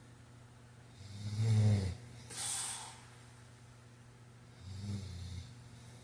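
A man snoring in sleep: a loud, low snore about a second in, followed right away by a short hissing breath out. A second, softer snore comes near the end.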